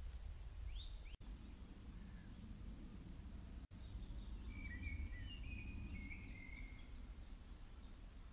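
Birds chirping and calling in short high notes over a steady low rumble of outdoor background noise. The birdsong is thickest in the second half. The sound cuts out twice, briefly, at about one and three and a half seconds in.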